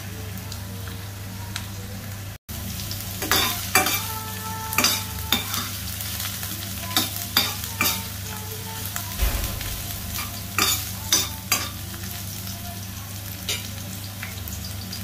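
Ginger strips frying in oil in a stainless steel wok, with a steady sizzle, while a spatula stirs them, scraping and clinking against the pan in quick strokes from about three to twelve seconds in.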